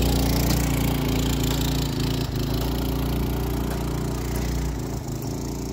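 A quadracycle's 6.5 HP single-cylinder four-stroke engine running steadily as the quadracycle drives away, its sound fading gradually.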